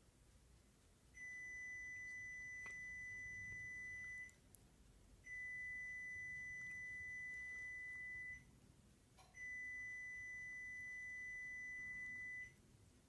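Three long, steady, high-pitched electronic beeps, each about three seconds long, with about a second's gap between them.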